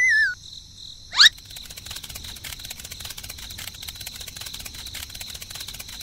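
Cartoon sound effects: a warbling whistle falling in pitch ends just after the start, a short, loud rising whoosh comes about a second in, and then crickets chirp steadily and fast.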